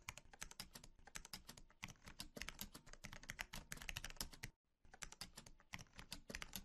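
Faint, rapid computer-keyboard typing: a quick run of light key clicks, broken by a short pause about four and a half seconds in.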